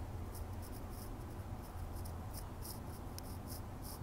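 Faint, irregular scratchy ticks, about a dozen in four seconds, over a low steady hum.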